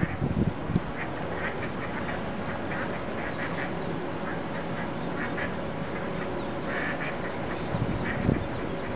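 A mother duck and her ducklings calling: short quacks and peeps repeating every second or so over steady background noise, with a brief low thump near the end.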